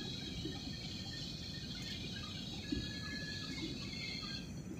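Airliner cabin noise: a steady low rumble of engines and rushing air, with a thin high whine held over it.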